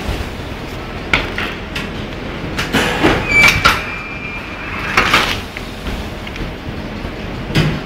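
Automatic sliding-table folding box machine running, with a steady drone under short sliding and clattering strokes that repeat a second or two apart.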